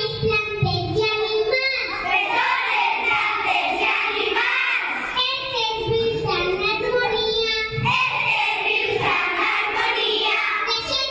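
Young children singing a song together.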